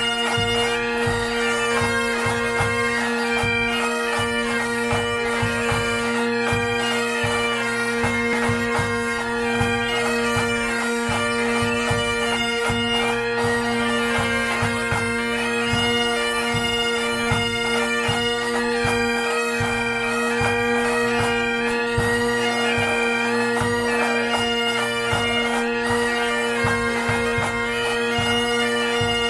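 Pipe band playing: Highland bagpipes with a steady drone under the chanter melody, and a drum beating time underneath.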